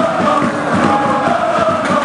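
Football ultras in the stand singing a terrace chant together, a loud, steady mass of voices holding the tune.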